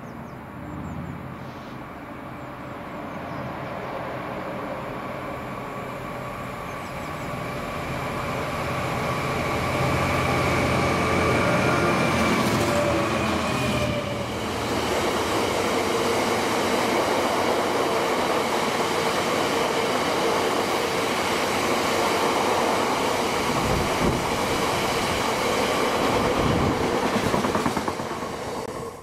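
DB Cargo Class 66 diesel locomotive, its two-stroke V12 working as it approaches hauling a freight train, growing steadily louder. About halfway, loaded box wagons roll past close by, wheels rumbling over the rails with a few sharp thumps near the end as the last wagons go by.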